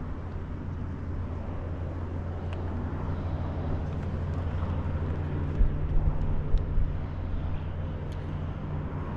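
Steady low hum of distant engine noise carrying up from the town and harbour, with a few low thumps on the microphone a little past halfway.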